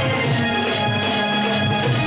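Traditional Indian music: long held melody notes over a steady low drum beat.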